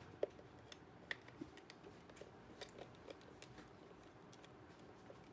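Faint, irregular small clicks and taps from handling a multimeter and its test probes while setting it to the AC voltage range to measure the supply, over near silence.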